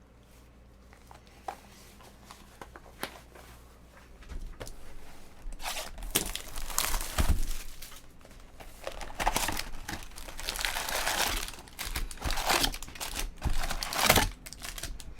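Foil trading-card pack wrappers crinkling and tearing as packs are opened and the cards handled. It is quiet for the first few seconds apart from a few light clicks, then irregular crinkling starts about four seconds in and keeps going.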